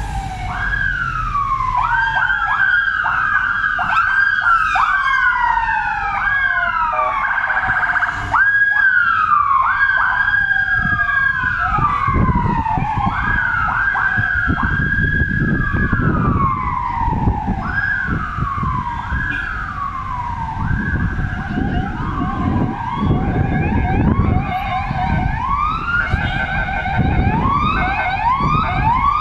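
Several vehicle sirens sounding at once, their wails overlapping in rising, holding and falling sweeps that repeat about every second or two, over a low rumble.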